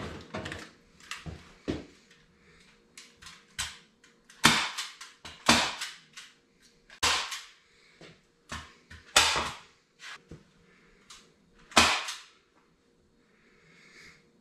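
An irregular series of sharp, short impact sounds in a small room, about a dozen, with a handful of louder ones spaced a second or two apart.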